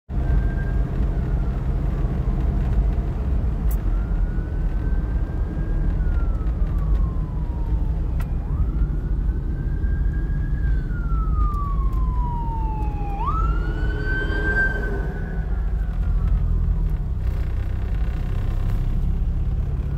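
Fire truck siren wailing, each cycle rising quickly and falling slowly, over the steady road rumble inside a moving car's cabin. The siren stops a few seconds before the end.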